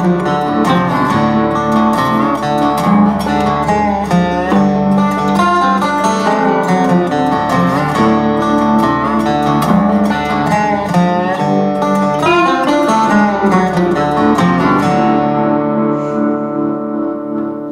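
Background music with plucked strings, thinning out near the end.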